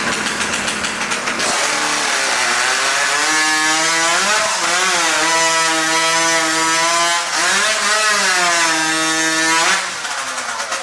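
Two-stroke chainsaw running at full throttle, cutting through a log. Its pitch sags and recovers several times as the chain bites into the wood. Near the end it drops back to a lower, pulsing idle.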